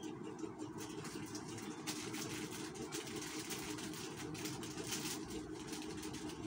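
A steady low mechanical hum, with plastic snack sachets crinkling irregularly as they are handled.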